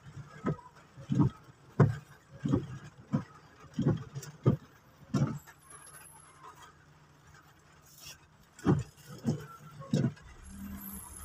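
Windshield wipers sweeping rain-wet glass, a low thump at each turn of the blades about every two-thirds of a second. They pause for about three seconds midway, then make three more strokes, over faint rain patter and a steady engine hum.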